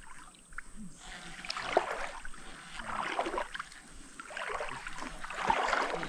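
Water splashing and sloshing in repeated surges about a second apart.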